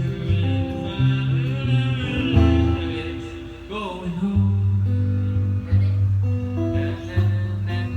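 Guitar-led music with a steady bass line, the chords changing about every second, and a brief sliding note about four seconds in.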